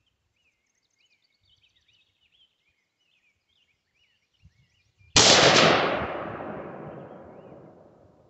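A single rifle shot from a Diamondback DB15 AR-15 fitted with an 18-inch stainless .223 Wylde barrel, fired about five seconds in, with a long echoing tail that dies away over about three seconds. A faint click comes just before the shot.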